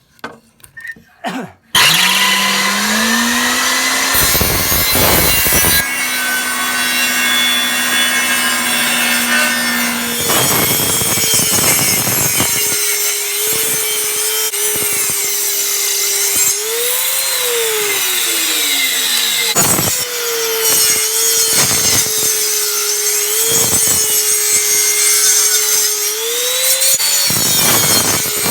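Electric tabletop saw starting up about two seconds in, its motor climbing to speed, then running and cutting wood into sections. The motor's pitch rises and falls repeatedly as the spinning blade goes into and out of the wood.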